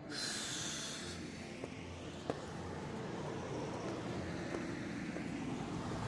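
Road traffic: a vehicle engine running with a steady low rumble, after a short hiss in the first second.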